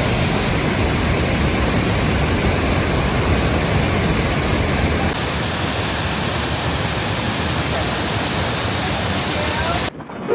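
Ban Gioc Waterfalls rushing: a loud, steady wash of falling water. Its tone shifts slightly about halfway through, and it cuts off abruptly just before the end.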